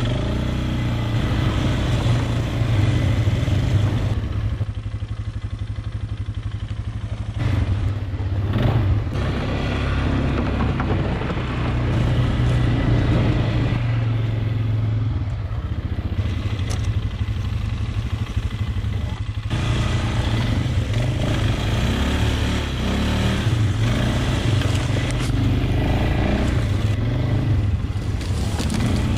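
Polaris Sportsman 500 ATV's single-cylinder four-stroke engine running while it is ridden over rough ground. The throttle eases off about five seconds in and again near twenty seconds, with scattered knocks and rattles from the machine.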